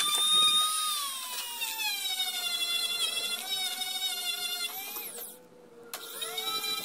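Dremel rotary tool spinning a wire brush against a rusty screw to strip thick rust, a high whine that sinks slowly in pitch as the brush is pressed on. About five seconds in it stops briefly, then spins back up with a rising whine.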